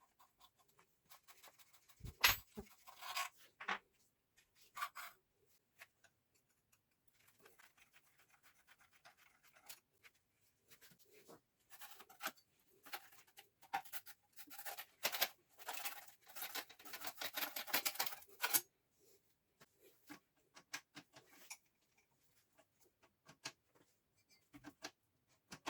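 Hand work on metal lathe parts: scattered scraping, rubbing and small clicks, with a sharp knock about two seconds in and a busier stretch of scraping from about twelve to eighteen seconds in.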